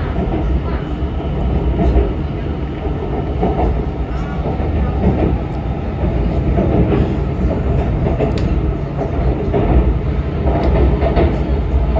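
Shanghai Metro Line 9 train running at speed between stations: a steady rumble of wheels on rail with a few faint clicks.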